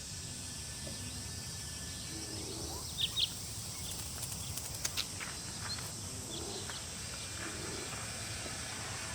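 Mountain forest ambience: a steady high drone of insects with short bird chirps, a pair about three seconds in and a few fainter ones after.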